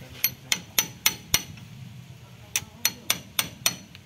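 Sharp, ringing metal-on-metal taps of a steel rod striking at the lever shaft on a Kubota DC68G combine harvester's transmission case while its oil seal is being changed. The taps come in two runs of five, about three a second, with a pause of about a second between the runs.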